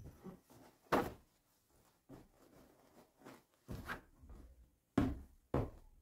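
Throw cushions being plumped and set down on a fabric sofa: soft thumps and fabric rustling. The sharpest thump comes about a second in, and three more fall in the second half.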